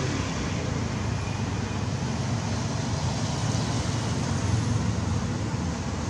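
Steady outdoor background rumble with an even hiss, with no distinct sounds standing out.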